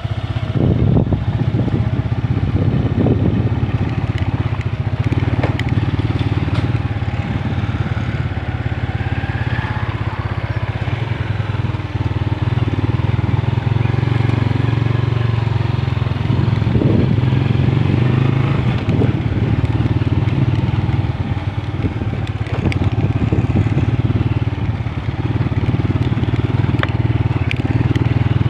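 Motorcycle engine running steadily while being ridden at low speed, a constant low drone.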